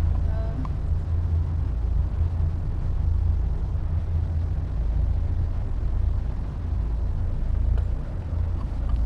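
Steady low rumble of a car ferry under way, heard from its open upper deck, even in level throughout.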